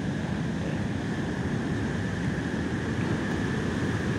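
Steady rush of ocean surf on a beach, mixed with wind on the microphone.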